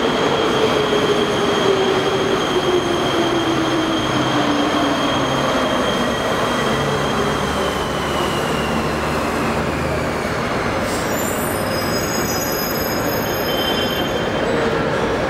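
Electric metro train pulling into the station and braking: a steady rumble under a motor whine that falls in pitch as it slows. High squeals come in about eleven seconds in.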